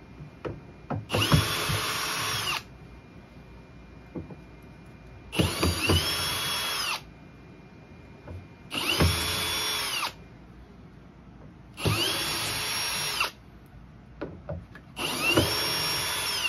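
Power drill/driver backing out the screws that hold a speaker's midrange drivers, in five short runs. Each run spins up, holds steady for a second or so and winds down, with small clicks of handling between runs.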